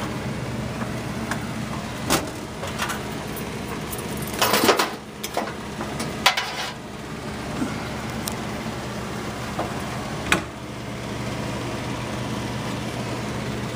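Scattered knocks, clicks and rustling of someone moving about and handling things in an attic, with one longer rustling clatter about four and a half seconds in. A steady low hum runs underneath.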